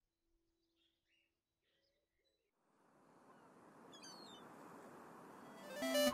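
Near silence with a few faint chirps, then a steady rushing beach ambience of surf fades in about two and a half seconds in and grows louder, with a few short bird chirps. In the last moment a few short tones sound and the level jumps as the cartoon ice-cream truck arrives.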